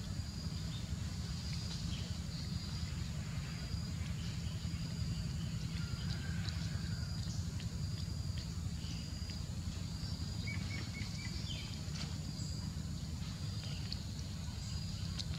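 Outdoor ambience: a steady high-pitched buzz and a high chirp repeating about once a second, over a constant low rumble, with a few faint clicks and short calls.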